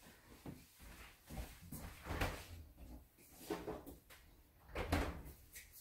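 Faint kitchen handling sounds: several soft knocks and bumps, the loudest about two seconds in and near the end, as of cupboards or drawers being opened and shut.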